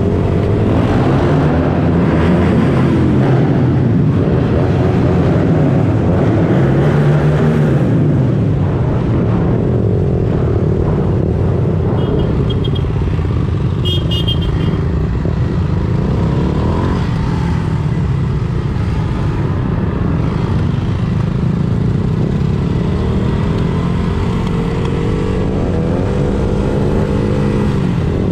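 Several vehicle engines running in a slow convoy, their pitch rising and falling as they rev and pass. Two short high beeps sound about halfway through.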